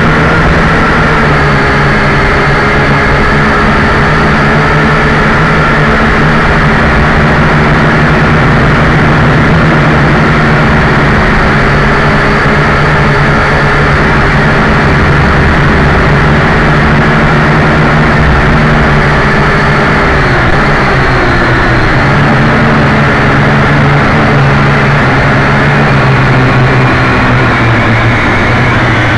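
JJRC H12C quadcopter's four motors and propellers whirring steadily, close and loud as heard by its own onboard camera microphone, over a rushing hiss. The motor pitch dips and settles lower about twenty seconds in.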